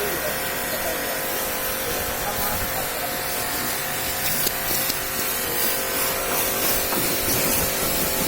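Pressure washer running: a steady hissing water spray over a steady motor hum.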